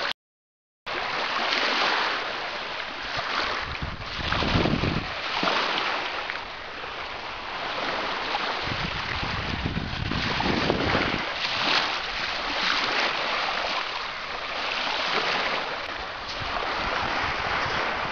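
Small waves washing up on a sandy beach, with wind rumbling on the microphone, most strongly twice. The sound drops out for under a second at the start.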